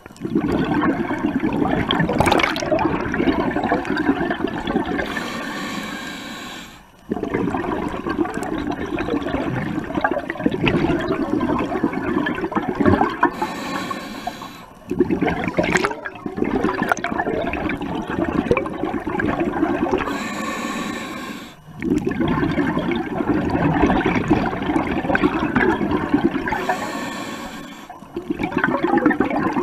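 Scuba diver breathing through a regulator underwater. Long exhalations come out as loud, bubbling rushes of a few seconds each, and each one is followed by a short, thin hiss as the diver inhales. The cycle repeats about four times at an even pace.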